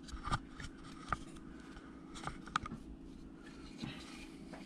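Hand woodcarving tools and a small wood carving being handled: a few light, scattered clicks and scrapes, with a faint steady hum underneath.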